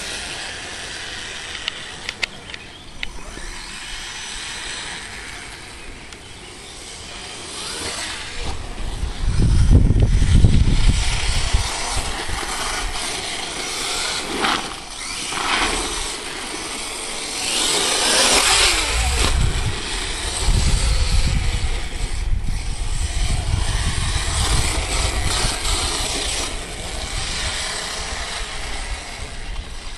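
Radio-controlled off-road truck running laps on a dirt track, its motor buzzing and rising and falling in loudness as it speeds up and slows, loudest about a third of the way in.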